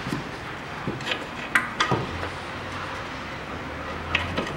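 Scattered light metal clinks and knocks as the steering knuckle and hub are handled and fitted onto the lower ball joint. A low steady hum starts about two seconds in.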